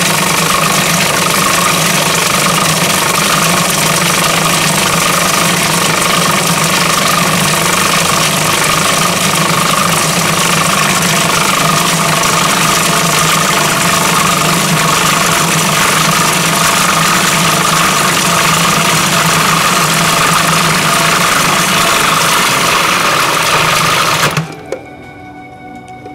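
Food processor motor running steadily at speed while oil is drizzled in to emulsify garlic, mustard and oil into a sauce; it cuts off suddenly near the end.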